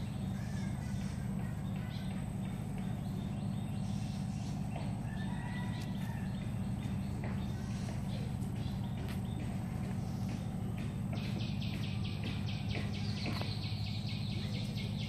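Outdoor rural ambience: a steady low rumble with scattered high bird chirps, and a fast run of repeated high chirps in the last few seconds.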